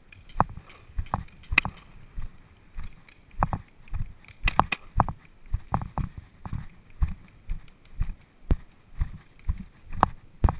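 A player's footsteps, about two a second, with gear knocking and clicking at each step.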